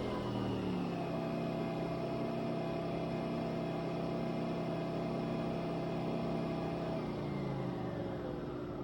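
Nespresso machine brewing a double shot of espresso, its motor running with a steady hum. The hum winds down in pitch near the end as the brew finishes.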